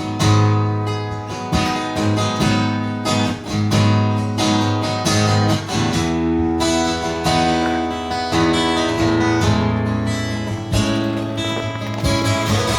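Acoustic guitar strummed steadily, chords ringing, with no singing.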